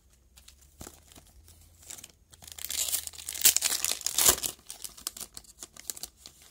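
Wrapper of a 2017-18 Upper Deck Team Canada hockey card pack being torn open and crinkled. A few light clicks of handling come first. Then comes a loud crackle of tearing and crumpling lasting about two seconds in the middle, tapering to lighter rustles.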